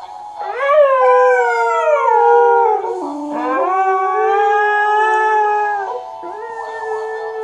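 Two Siberian huskies howling together in long, overlapping howls. The loudest howl rises sharply about half a second in and glides down, then starts again lower around three seconds and is held until about six seconds in.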